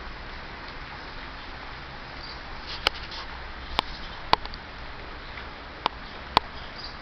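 Steady rain falling, a continuous hiss, with five sharp ticks in the middle of it, like drops striking something hard.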